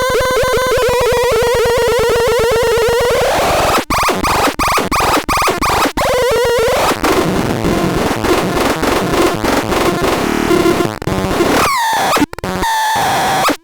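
Harsh synthesized electronic noise: a buzzing tone pulsing rapidly at a steady pitch, which after about four seconds breaks into chopped, stuttering sound with sudden dropouts, and near the end a few falling pitch swoops.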